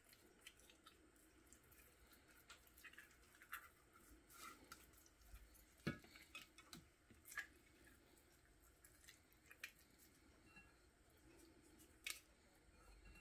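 Near silence with the faint wet sounds of hands rubbing seasoning into a whole raw red snapper over a glass bowl, with scattered soft clicks and taps; the sharpest come about six seconds in and near the end.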